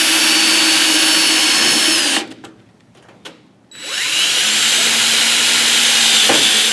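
Power drill driving screws through an LED module strip into a troffer light fixture's metal housing: two steady motor whines, the first about two seconds long, the second spinning up after a pause of about a second and a half and running on.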